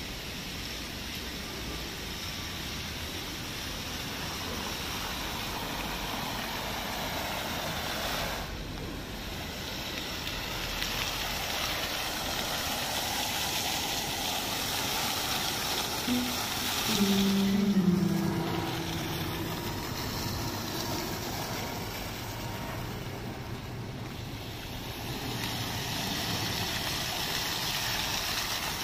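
Fountain jets splashing into their basin under rain, a steady watery hiss. About two-thirds of the way through, a few short low tones sound in steps for a couple of seconds.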